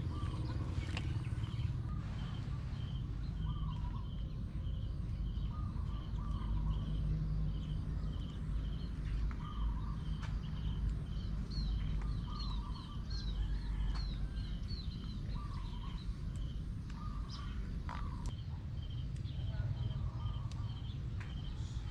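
Birds calling outdoors with short scattered chirps, over a steady high pip that repeats about two to three times a second, with a constant low rumble underneath.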